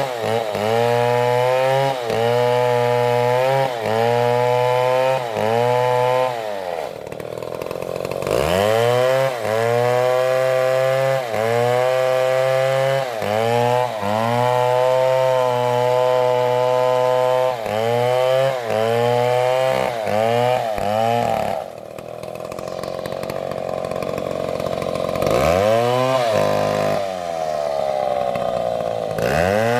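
Stihl MS720 two-stroke chainsaw cutting into a tree at full throttle, its engine note dipping and recovering about once a second as the chain bogs in the wood. Twice, about seven seconds in and again past the twenty-second mark, the revs drop away and then climb back up.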